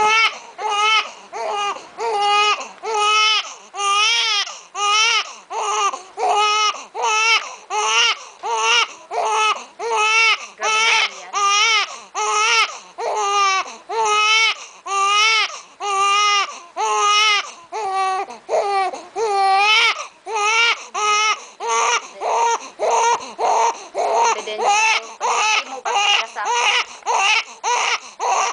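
Infant crying without pause in short, rhythmic wails, about three every two seconds, each with a wavering pitch.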